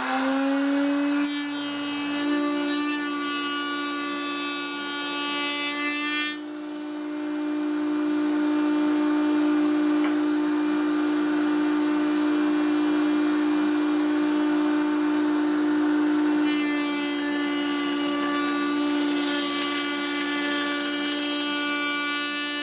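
Table-mounted router running at a steady high whine while a door panel is fed past a rabbeting bit, the cutting adding a harsh rasp from about one to six seconds in and again from about sixteen seconds on; in between the router runs free.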